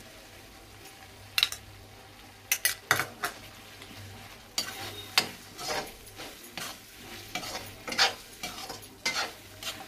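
A perforated metal spoon scraping and clinking against a metal kadhai as a thick masala is stirred, in irregular strokes, some sharper than others. Underneath, the masala sizzles faintly in oil that has separated out, the sign that it is fully cooked.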